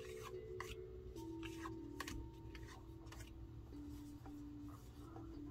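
Soft background music of long held notes that shift in pitch every second or so, with scattered light clicks and scrapes from a hexagonal card box being handled.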